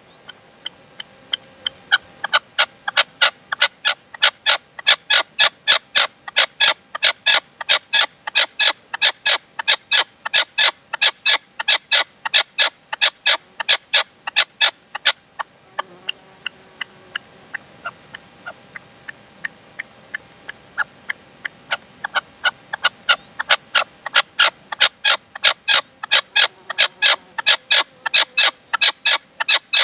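Caged decoy male red-legged partridge calling in a long run of short, sharp notes, about three a second. The notes grow weaker and sparser for several seconds midway, then come strong again.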